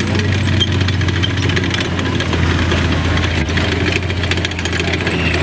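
M3 Lee medium tank driving across dirt, its engine running steadily with a fast ticking clatter over the low engine note.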